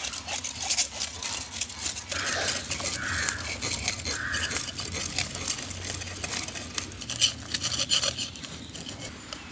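Knives scraping the scales off snakehead murrel fish: a rapid, irregular run of short scraping clicks from several blades at once.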